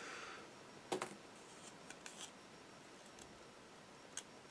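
Faint clicks and light taps of plastic model-kit fuselage halves being handled, with a soft rustle at the start and the sharpest click about a second in.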